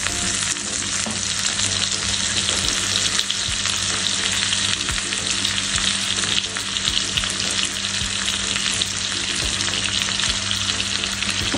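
Marinated chicken breast frying in melted butter in a pan: a steady sizzle with small crackles and spatters.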